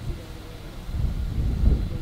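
Gusting wind on the microphone over the low rumble of a jet aircraft, dipping and then swelling again about halfway through.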